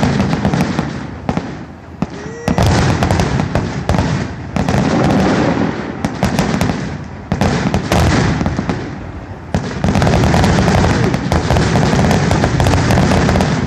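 Fireworks display in its final stretch: shells bursting in a dense, near-continuous barrage of booms and crackles, with only brief dips between volleys.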